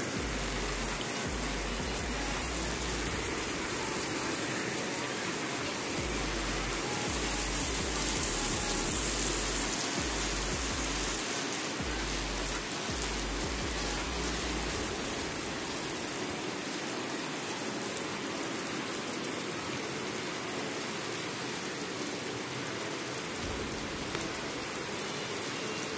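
Very heavy rain pouring down, a dense, steady hiss. A low rumble comes and goes through the first half.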